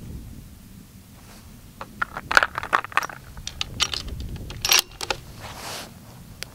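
A quick run of sharp metallic clicks and clinks over about three seconds, the sound of a bolt-action rifle and its cartridges being handled: the bolt worked, rounds clinking. A short rustle follows near the end.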